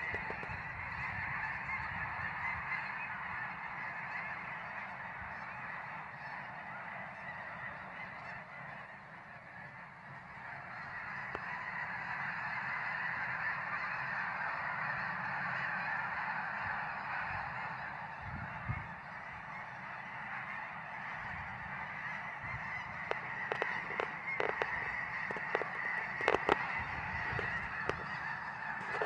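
A huge flock of snow geese calling all at once, a dense, unbroken din of overlapping honks. It dips slightly about a third of the way through, then swells again, with a few sharp clicks near the end.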